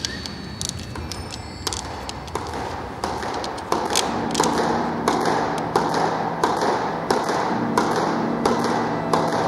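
Squash ball hits, sharp irregular smacks about two or three a second, each with a short echo off the court walls. A low steady hum comes in about four seconds in.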